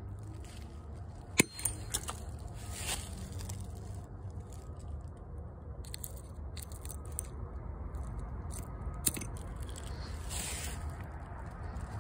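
Drywall hatchet striking a relish packet nailed to a dead tree trunk: one sharp knock about a second and a half in and a softer one about three quarters of the way through, over a steady low rumble.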